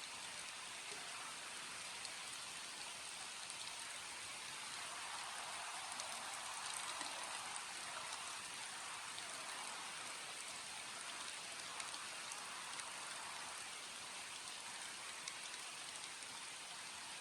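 Steady rain falling, with a dense hiss and scattered drops ticking on surfaces, swelling slightly for a few seconds midway.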